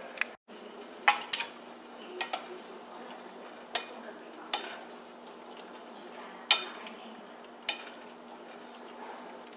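Wooden chopsticks stirring long beans in a stainless steel pot of hot water, clicking sharply against the pot about eight times at irregular intervals. Underneath is the steady hiss of the water and a low hum.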